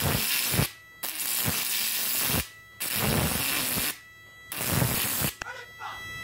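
High-voltage electric arc drawn across the output leads of a homemade fish-shocking inverter: a loud crackling hiss in four bursts of about a second each, with short breaks between them. After the last burst, near the end, only a faint steady high whine is left.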